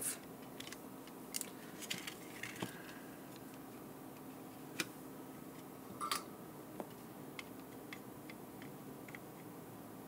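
Faint, scattered small clicks and taps from hands handling a small electronic device and a soldering iron, over a low steady hum.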